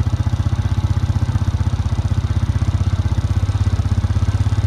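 A vehicle engine running steadily close by, with a fast, even throb.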